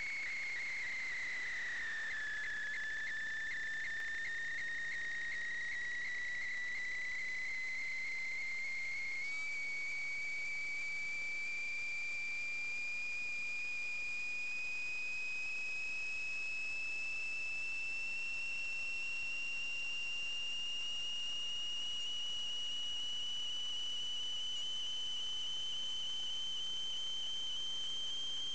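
Steady high-pitched electronic whine, most likely from the sewer inspection camera equipment. It dips in pitch about two seconds in, then climbs slowly and evenly for the rest of the time.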